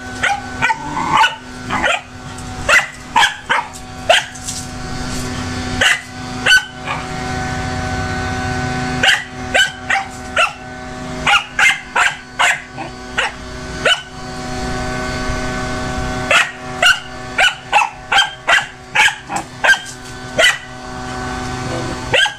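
Small dog giving play barks to coax a kitten into playing, in quick volleys of short, sharp barks with pauses of a second or two between volleys. A steady hum runs underneath.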